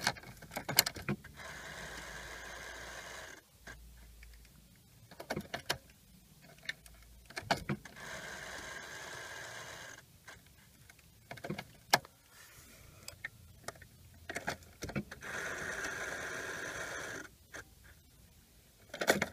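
Clicks and key jingles from a Volkswagen's ignition being switched on and off, three times over. After each switch-on comes a steady electric whirr lasting about two seconds.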